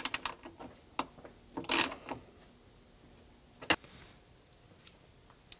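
Ratchet driver tightening a T30 Torx bolt that clamps a webbing strap: a few sharp separate clicks, with a short clattering burst a little under two seconds in and another click near the four-second mark.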